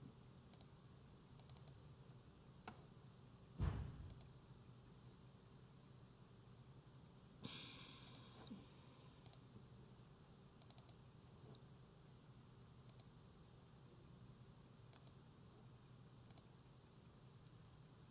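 Near silence with scattered faint clicks. There is one low thump about three and a half seconds in and a brief hiss about seven and a half seconds in, over a faint steady low hum.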